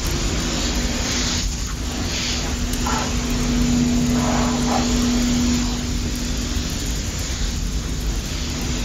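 A small electric water pump runs with a steady hum under the hiss of a water jet spraying. The hum drops out briefly near the end.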